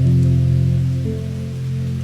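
Slow ambient music of held low notes, the chord changing about a second in, over a faint steady hiss of rain.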